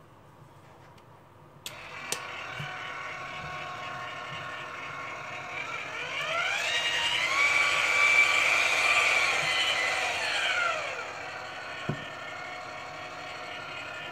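TopCad tyre truing machine's electric motor switched on with a click about two seconds in, then running with a steady whirring whine. Midway it speeds up, the whine rising in pitch and getting louder, holds, then slows back down to the lower speed.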